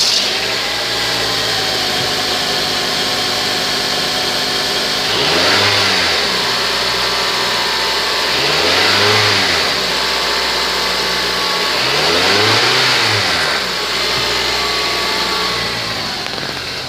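2004 Honda Element's 2.4-litre i-VTEC four-cylinder engine idling, then revved three times, each rev rising and dropping back to idle within about a second, some three and a half seconds apart.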